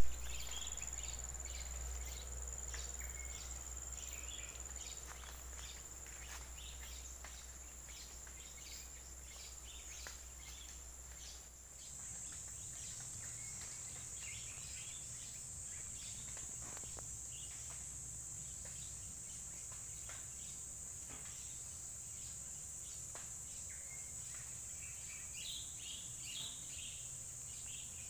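Outdoor insect and bird ambience: a steady, high-pitched insect drone with scattered short chirps over a low rumble. The drone shifts slightly higher and grows louder about twelve seconds in.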